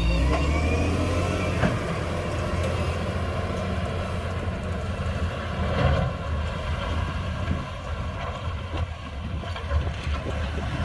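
Heavy earthmoving machinery running steadily, with a low diesel engine hum and a few knocks and rattles.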